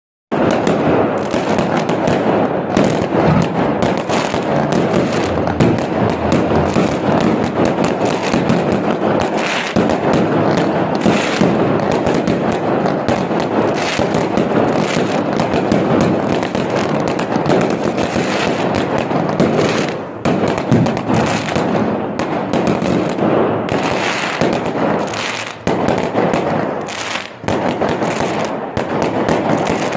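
Fireworks and firecrackers going off in a dense, continuous barrage of bangs and crackles, with a few brief lulls near the end.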